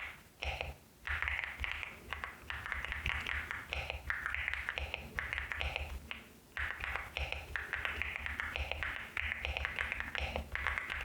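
Continuous typing on a LEOBOG HI75 mechanical keyboard with Nimbus V3 switches: a dense, quick run of keystroke clacks with a low thock under them, broken by a couple of short pauses.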